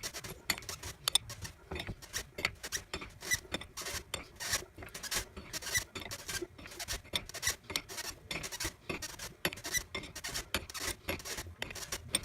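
A hand wrench turns the nut of a supercharger pulley install tool, making rapid, irregular metallic clicks and scraping. The tool is pressing the pulley hub onto the M112 supercharger's input shaft.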